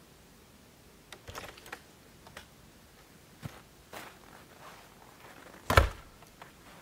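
Scattered light clicks and knocks, then a cabin door banging shut near the end, the loudest sound.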